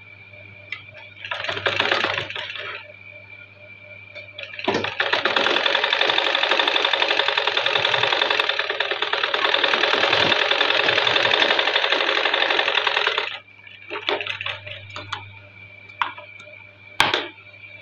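Sewing machine stitching a seam: a short run about a second in, then a long steady run of rapid stitching that stops abruptly, followed by a few light clicks and a sharp click near the end.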